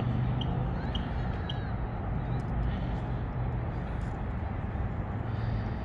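Steady city ambience: a continuous low hum of distant traffic, with faint voices of people nearby.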